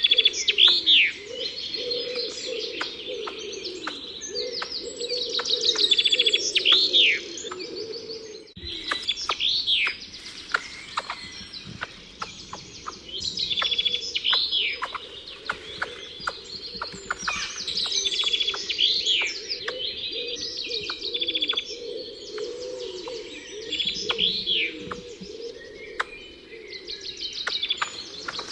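A chorus of songbirds singing and chirping: repeated rapid trills and quick downward-sweeping whistles over a lower, busier layer of wavering notes. There is a short break about eight and a half seconds in.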